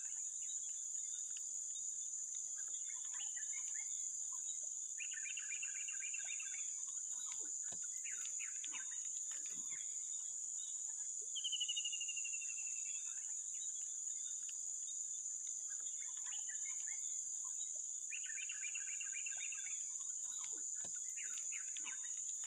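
A steady high-pitched insect drone with intermittent bird calls, including a falling whistle and a bout of fast repeated notes. The same run of calls comes round again about every 13 seconds.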